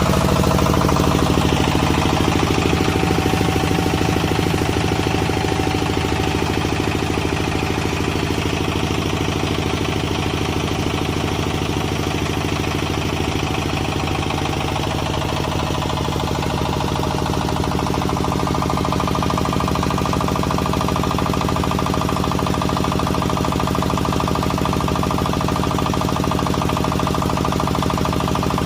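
FFC-45 multipurpose flour mill (grinder) running at steady speed, a constant loud machine hum with a fixed pitch.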